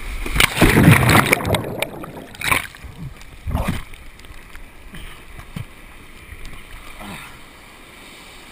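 Breaking surf rushing and splashing around a kayak caught in whitewater as it overturns, heard close on the kayaker's GoPro. Loudest in the first second or so, with two more sharp splashes, then quieter sloshing that fades near the end.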